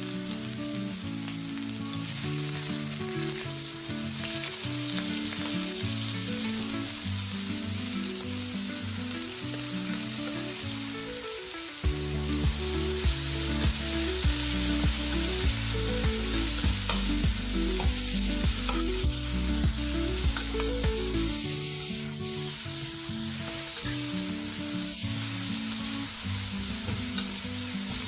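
Vegetables sizzling as they fry in oil in a pan, a steady hiss, under background music whose deeper bass and beat come in about twelve seconds in.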